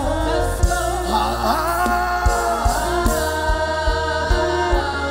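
Gospel worship music: sustained keyboard-pad chords over bass, with a voice singing a drawn-out, sliding melody in the first few seconds. A steady low drum beat runs under it from about two seconds in.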